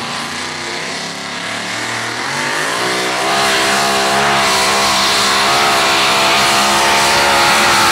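Engine of a two-wheel-drive pulling pickup revving up as it launches against the weight-transfer sled. The note climbs over the first few seconds, then the engine holds at loud high revs with its pitch wavering as it pulls.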